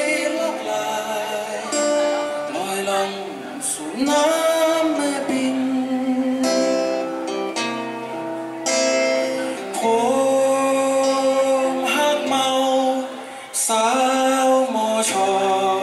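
A solo singer singing in Thai to his own acoustic guitar accompaniment, held and sliding sung notes over steady guitar chords, played live through a PA.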